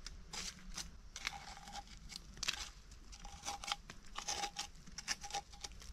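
Irregular short scrapes and crunches of soil being picked and rubbed off a freshly dug clump of yam tubers by hand.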